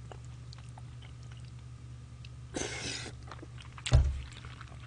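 A man slurping jajangmyeon noodles close to a microphone and chewing, with a half-second slurp about two and a half seconds in and small wet clicks of eating. A sharp thump just before the end is the loudest sound, over a steady low hum.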